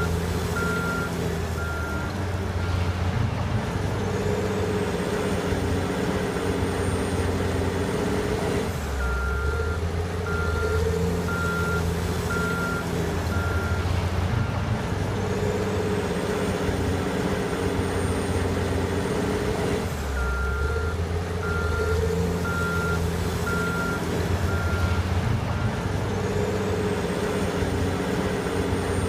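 Caterpillar 980 wheel loader's diesel engine working under load, its reverse alarm beeping in three spells as it backs up. Between the spells a high whine rises and then holds as the engine revs up to drive forward, the back-and-forth cycle repeating about every eleven seconds.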